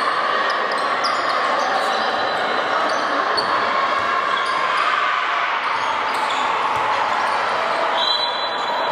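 Handball game sounds in a large sports hall: the ball bouncing on the court among players' shouts and voices, with short high squeaks now and then.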